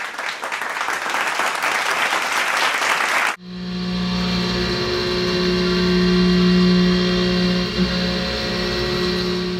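Dense, crackling noise for about three seconds that cuts off abruptly. Then a CNC mill boring out the center of an off-road wheel, running with a steady pitched hum.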